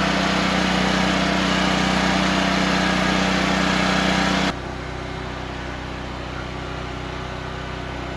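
Generator engine running steadily at a constant speed. About four and a half seconds in, it drops suddenly in volume and sounds duller, muffled by a two-walled sound barrier lined with Rockwool insulation.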